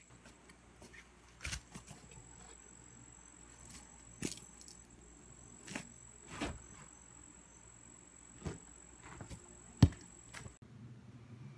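Faint scattered knocks and footfalls of a man walking into and about a wooden chicken house to take an egg, the sharpest knock near the end, over a faint steady high-pitched whine.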